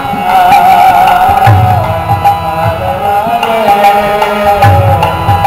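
Devotional kirtan: a voice sings a bending melodic chant over the steady chords of a harmonium, with low drum strokes and sharp clicks keeping the beat.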